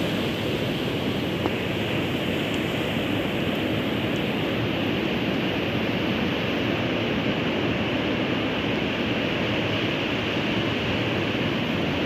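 Rough sea breaking at high tide: the surf makes a steady, dense wash of noise that does not let up.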